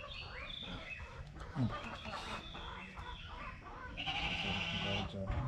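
A sheep bleating, one call about a second long near the end.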